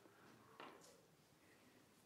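Near silence: room tone in a pause of speech, with one faint, brief sound about half a second in.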